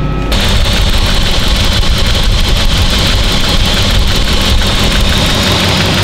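Porsche 928's V8 engine idling steadily with the air-conditioning compressor engaged, a constant high hiss running over the engine note. The sound comes in abruptly just after the start.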